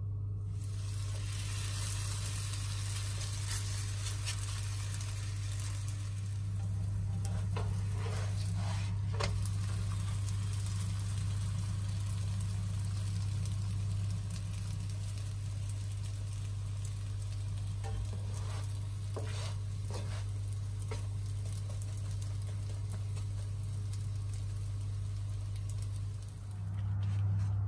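Layered flatbread dough, made with melted butter and oil, sizzling in a hot nonstick frying pan. The hiss starts just as the dough goes in and carries on steadily with a few small crackles, over a steady low hum.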